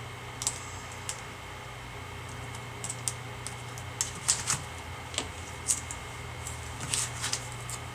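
Irregular light plastic clicks and taps as a replacement laptop LED screen panel and its ribbon cable are handled and fitted into a netbook's display lid, over a steady low hum.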